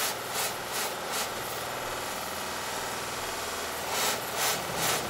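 Steel straight razor blade held against the spinning cloth wheel of a bench buffer: a steady hissing rub over the motor's run, swelling about twice a second near the start and again near the end as the blade is stroked along the wheel.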